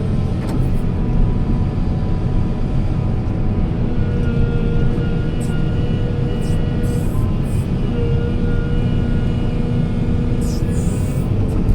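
Heavy diesel construction machine's engine running steadily under load, with a steady whine over the low rumble. Short bursts of hiss come and go, the strongest about ten seconds in.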